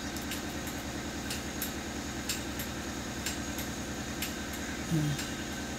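Light, scattered clicks of small steel parts being handled and fitted into a tractor hydraulic distributor (control valve) block, over a steady low hum.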